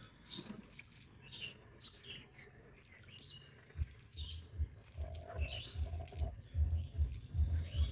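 Birds chirping in short, repeated calls. From about four seconds in, a low, uneven rumble comes in and grows louder.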